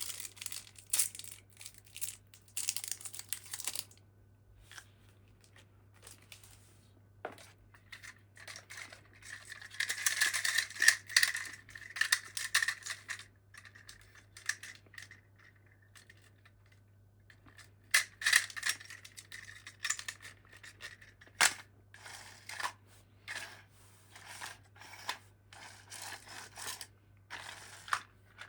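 Toy packaging being handled and opened by hand: irregular bursts of crinkling and tearing with sharp clicks and taps, broken by short pauses.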